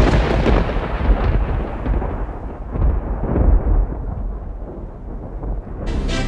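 A loud thunderclap that rolls on as a rumble, its high end fading away over about five seconds. Music with a steady beat comes in near the end.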